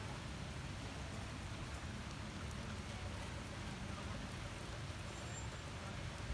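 Steady rain falling on wet ground and leaves, an even hiss with a few faint drop ticks.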